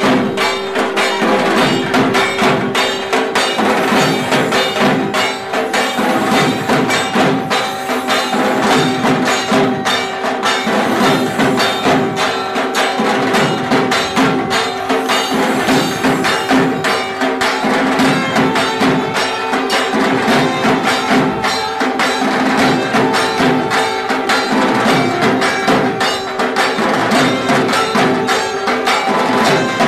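Traditional-style music with dense, rapid percussion over a steady held tone.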